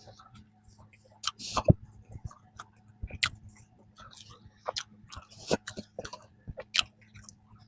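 Close-up chewing of peanut cream bread: irregular mouth clicks and short chewing noises.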